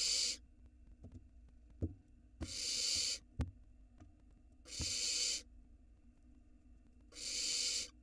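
Barn owl nestlings giving hissing begging calls: four drawn-out hisses, each just under a second, about every two and a half seconds. A few short knocks from the nest box fall between them.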